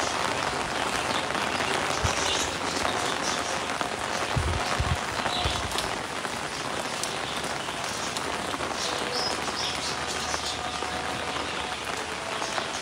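Steady rain falling, an even hiss of drops, with a few brief low bumps about four to five seconds in.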